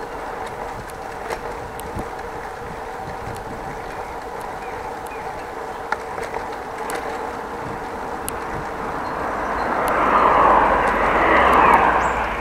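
Steady riding noise of a bicycle on the road, with a faint hum and small rattling clicks. About nine seconds in, a motor vehicle's noise swells up and passes, loudest just before the end.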